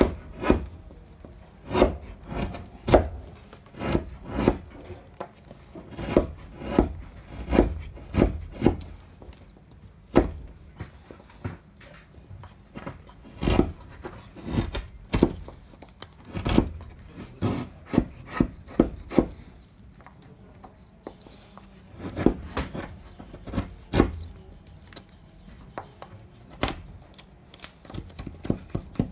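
A hand blade shaving a small wooden plug for a wooden boat hull: short, irregular scraping strokes, often one or two a second and sometimes in quick runs, with a pause of a few seconds past the middle.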